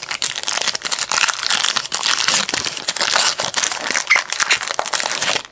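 Foil wrapper of a Panini Unparalleled trading-card pack being torn open and crumpled by hand: a dense, crackling crinkle that stops abruptly near the end.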